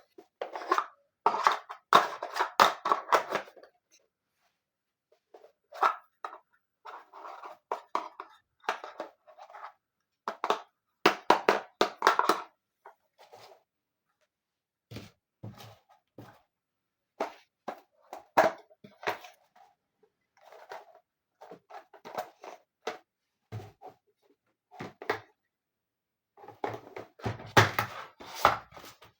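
Miniature toy furniture pieces being handled and set in place: clusters of small clicks, taps and light knocks, with short silent gaps between them.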